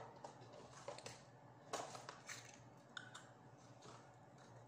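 Faint eating and handling noises: a spoon clicking and scraping in a bowl, and food being handled in crinkling plastic, as a string of short irregular clicks and rustles.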